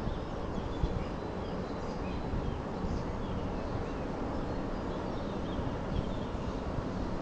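Small birds chirping in short, high calls over a steady low outdoor rumble.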